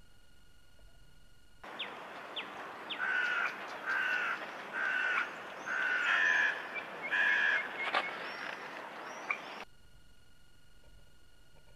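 A crow cawing repeatedly, about six harsh caws in a row, over a steady outdoor hiss, with a few short high bird chirps just before. It starts abruptly about two seconds in and cuts off near the end.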